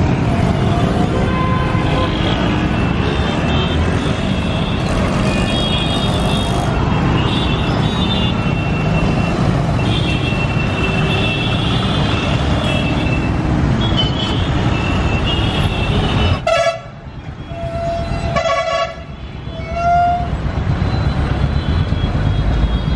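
Dense stop-and-go traffic: the engines of many motorbikes and other vehicles running together, with horns honking again and again over the top. About three-quarters of the way through the engine noise dips and a few short horn beeps stand out.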